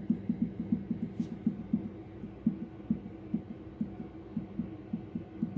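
Monroe gas shock absorber cartridge from an Opel Vectra A front strut, knocking as it is worked in and out: a series of short dull knocks, about four a second at first, spacing out in the middle and quickening again near the end. The knock comes from inside the shock absorber itself, a sign that the cartridge is faulty even though it does not leak and its rod is unmarked.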